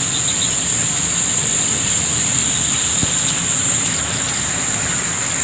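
Steady, high-pitched chorus of insects trilling without a break, with a single faint click about three seconds in.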